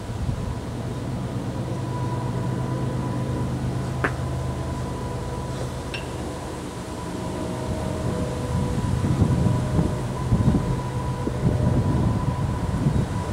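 Steady low mechanical hum with a faint steady higher tone, and one sharp metallic clink about four seconds in as the two kettlebells knock together in the rack. Uneven low rumbling rises in the second half.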